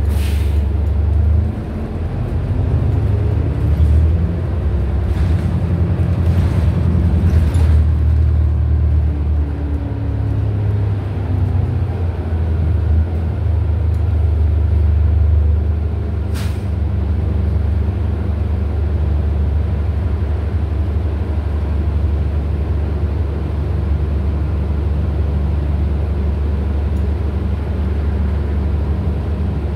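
2013 New Flyer XDE40 diesel-electric hybrid bus heard from inside the passenger cabin, its Cummins ISL9 diesel engine running steadily with a low drone while the bus drives. A few brief sharp noises cut through: one near the start, several around six to eight seconds in, and one about sixteen seconds in.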